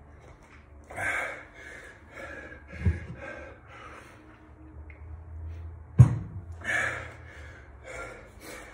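A man breathing hard between HIIT exercises: a string of heavy, gasping exhales about a second apart. A dull thump comes about three seconds in, and a sharp knock, the loudest sound, about six seconds in.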